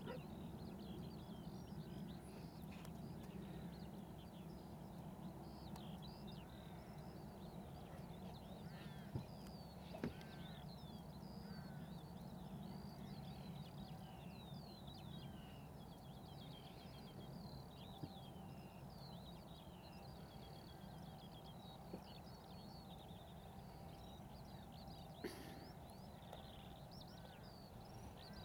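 Faint, steady birdsong: many quick chirps and warbling phrases running on without a break, over a low steady rumble, with a few faint knocks.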